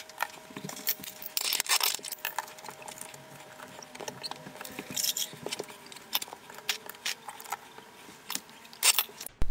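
Glass subway tiles being handled and pressed into place on the wall: scattered light clicks and taps of glass against glass and plastic spacers, with a couple of short scrapes.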